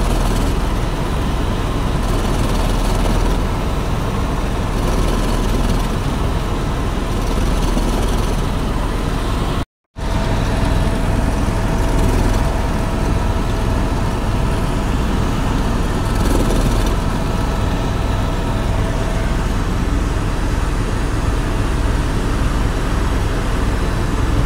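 Airbus sightseeing helicopter in flight, heard from inside the cabin: a steady loud drone of turbine and rotor with a low, pulsing rotor beat. The sound cuts out for a moment about ten seconds in, then resumes unchanged.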